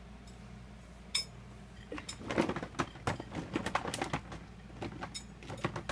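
Light clicks and knocks of hard plastic toy figures being handled: one click about a second in, then a quick run of clattering taps from about two seconds on.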